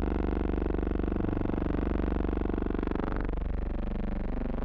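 A steady buzzing drone with many overtones, unchanging throughout, with no distinct impacts or events.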